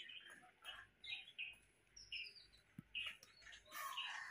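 Birds chirping in short, high calls, one sweeping downward, with a louder, harsher call near the end.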